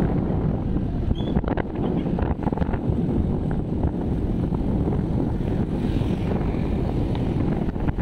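Wind buffeting the microphone of a moving camera: a steady, dense low rumble. A few faint clicks come through about one to three seconds in.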